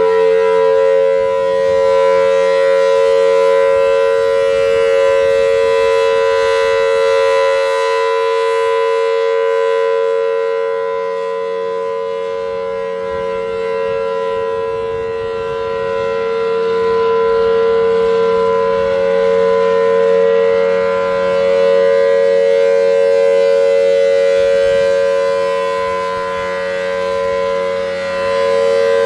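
Federal Signal Thunderbolt 1000T outdoor warning siren sounding a steady alert tone at full speed: two close, steady pitches, louder and then fainter in slow swells as the rotating head turns toward and away.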